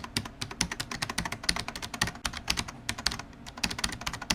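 Computer keyboard typing: a rapid, irregular run of key clicks.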